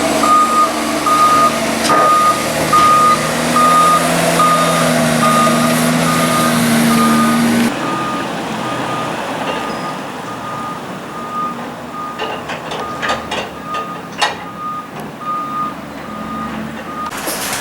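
JCB 414S wheel loader's reversing alarm beeping steadily, over its diesel engine working hard. About eight seconds in the engine sound drops away while the beeping carries on, with a few sharp clicks after that.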